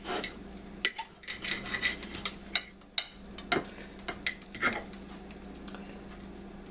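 Knife and fork clinking and scraping while cutting into a cooked rib eye steak, in scattered short strokes for the first five seconds or so, then dying away.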